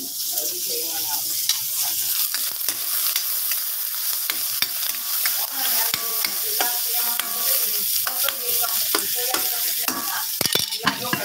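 Chopped vegetables sizzling in hot oil in a stainless steel wok while a spatula stirs them, with frequent sharp clicks and scrapes of the spatula against the pan over a steady hiss.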